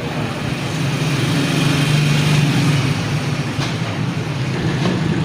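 Vehicle engine running steadily with an even low hum.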